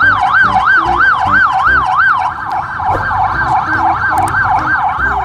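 Police car sirens sounding a fast rising-and-falling yelp, about three sweeps a second. A second siren joins about two seconds in, slightly out of step with the first.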